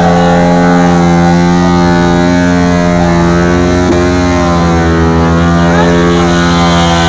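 Motorcycle engine held at steady high revs during a burnout, a single unbroken note, the rear tyre spinning on the spot and throwing off smoke.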